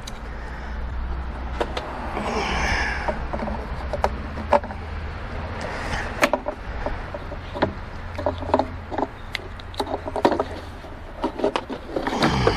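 Irregular small plastic clicks, knocks and rattles as the globe holders and plugs of a BA Falcon's tail light wiring loom are worked loose by hand. A low steady hum runs underneath.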